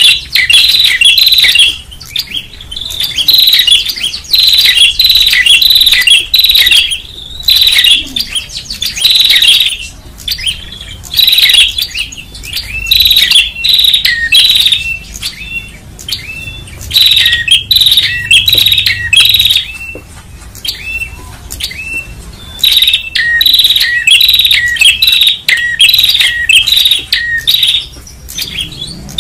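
Prenjak songbird calling busily: loud, rapid high chirps in runs of one to two seconds with short pauses between them.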